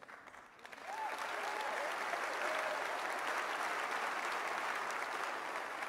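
Large auditorium audience applauding, swelling in about half a second in and fading toward the end, with a few faint whoops about a second in.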